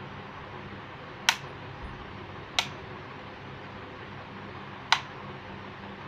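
A plastic rocker switch on a wall switchboard clicking three times, sharp single clicks over a steady low hum.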